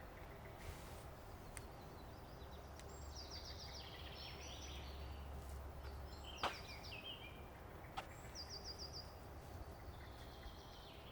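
Faint outdoor ambience with birds calling in short, high, rapidly repeated trills several times. Two sharp clicks or snaps come about two-thirds of the way through, a second and a half apart.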